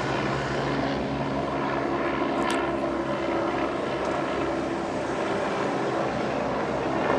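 A steady engine drone holding one even pitch.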